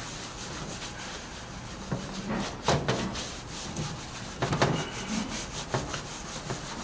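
Paper towels scrubbing loosened spray-paint graffiti off the face of a metal road sign: an uneven rubbing with a few louder, sharper strokes, the strongest about a third and two-thirds of the way through.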